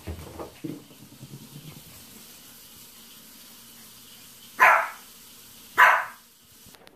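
Yorkshire terrier puppy barking twice, two short, sharp barks about a second apart.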